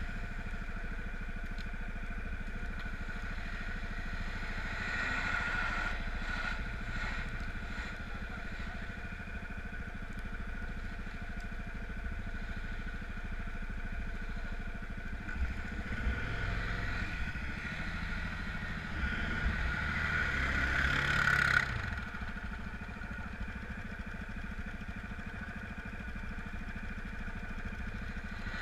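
Off-road vehicle engine running steadily, then revving up and down from about 15 seconds in, building to a peak just past 21 seconds before the revs drop away suddenly.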